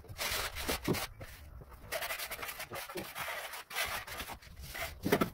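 Repeated scraping and rubbing of tools and gloved hands on damp sand-cement floor screed, with a louder knock near the end.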